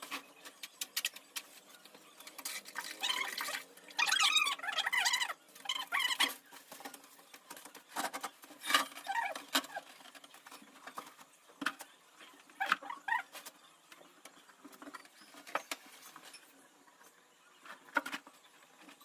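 Irregular light taps and clicks mixed with short bursts of scraping, the busiest stretches a few seconds in and again about halfway through: the noise of hand work going on.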